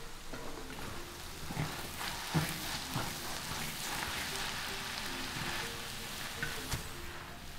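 Fried noodles and vegetables sizzling in a large wok as they are tossed and stirred, a steady hiss like rain, with a few sharp knocks. Soft background music plays underneath.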